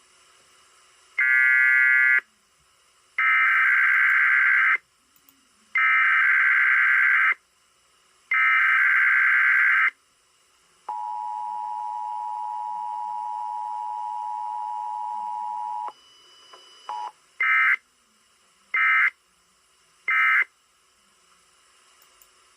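Emergency Alert System required weekly test sent over the air. It begins with the SAME digital header as four harsh, shrill data bursts. Then the two-tone attention signal holds steady for about five seconds. It ends with three short end-of-message data bursts.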